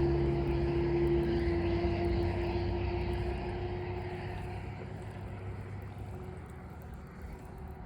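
A steady engine drone, loudest at first and fading away over several seconds as it moves off into the distance.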